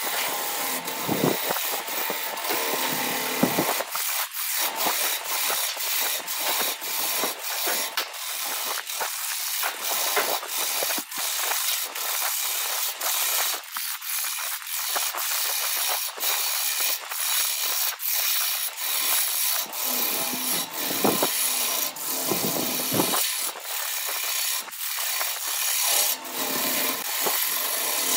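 A hand-held turning chisel cutting a spinning wooden blank on a wood lathe: a steady scraping hiss with many sharp, irregular ticks.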